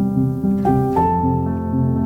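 Background music: a soft instrumental melody of plucked harp-like and piano notes changing every fraction of a second.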